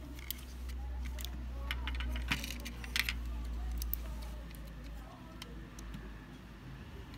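Light metallic clicks and clinks of a diecast metal toy car being handled, its opening doors swung and snapped. The clicks come thickest a couple of seconds in, over a low rumble of handling.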